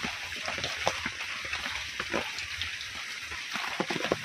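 Rice being washed by hand in steel bowls of water: irregular small splashes, swishes and light clinks of fingers and grains against the metal, over a steady hiss.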